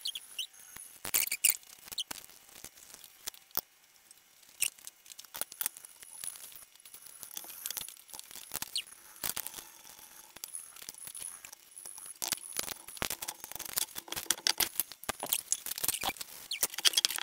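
Irregular light metallic clicks, taps and clinks of steel parts being handled and fitted together as a Massey power hammer's stuffing box is reassembled. The taps come thicker in the last few seconds.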